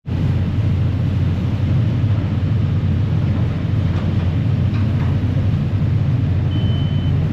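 Passenger ferry's diesel engines running with a steady low rumble as the vessel pulls away from the wharf. Near the end a single high electronic warning beep sounds.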